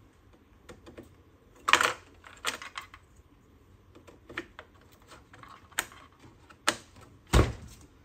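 Scattered sharp plastic-and-metal clicks and clacks from hands working at the memory slots of an open desktop PC: DIMM slot latches being snapped and a DDR4 RAM stick being handled and pulled out. About six louder clicks, the loudest near the end.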